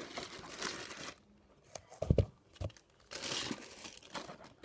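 Clear plastic bags crinkling and rustling as they are handled, with a couple of dull knocks about two seconds in.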